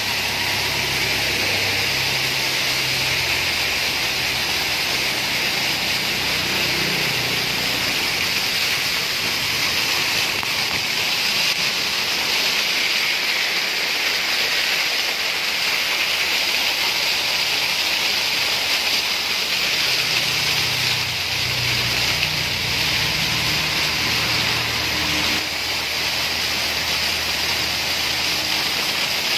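Steady hiss of heavy rain and rainwater runoff pouring over rocks. A vehicle engine is heard in the first several seconds as a jeep drives up the wet road, and a low rumble returns about twenty seconds in.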